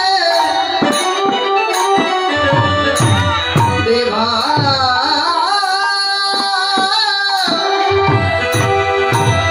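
Bengali devotional kirtan music: a singing voice with sliding, ornamented melody over held harmonium tones, with a hand drum keeping a steady beat.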